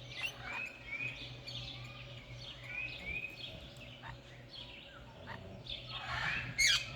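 Parrots in an aviary chirping: a run of short, repeated arching chirps, then a louder, shrill call near the end, over a steady low hum.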